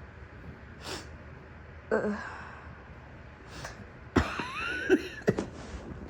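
A sick woman coughing: a breath in, a short cough about two seconds in, then after another breath a louder, harsh, strained cough from about four seconds in, followed by a few shorter coughs.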